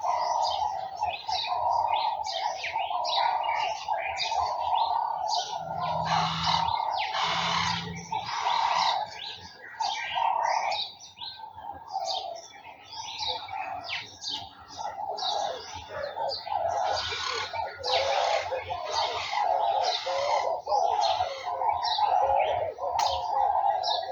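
Many garden songbirds chirping and singing at once, a dense overlapping chorus of quick calls and trills. Two short low sounds come in about six and seven and a half seconds in.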